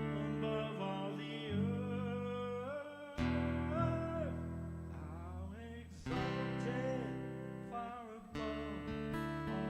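Live acoustic guitar strumming chords, with a voice singing a slow melody over it.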